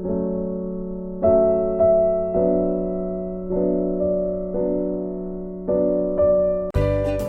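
Background music: slow, gentle electric piano chords changing about once a second, switching near the end to a brighter, upbeat track with a beat.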